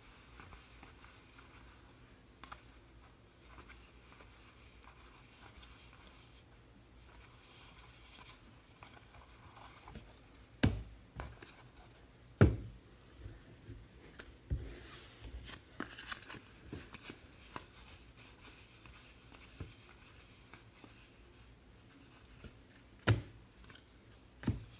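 Faint rustle and slide of trading cards being handled and flipped through by hand, broken by a few sharp taps and knocks as cards are set down, the loudest about halfway through and two more near the end.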